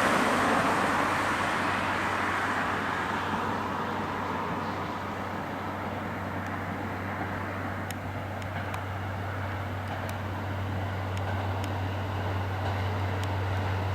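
Train noise: the rumble of the Kiya 95 diesel track-inspection train fades away over the first few seconds. A steady low hum runs underneath, with a few faint ticks later on.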